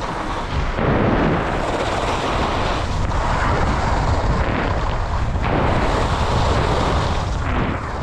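Wind rushing over a helmet-mounted camera's microphone while skiing downhill, mixed with the scrape of skis sliding over packed, groomed snow. It is loud and steady, swelling and easing slightly with each turn.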